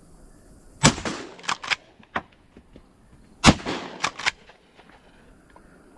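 A shotgun fired twice, about two and a half seconds apart. Each shot is followed by a few sharp clicks.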